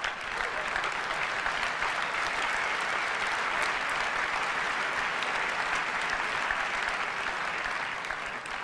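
Large audience applauding steadily, a dense even clapping that eases off near the end.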